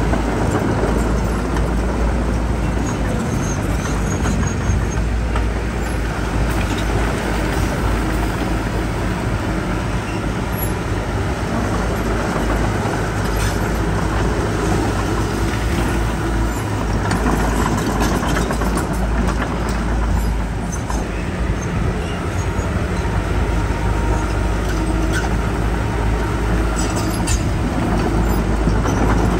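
Diesel engines of heavy earthmoving machinery running steadily, with a few sharp knocks through it.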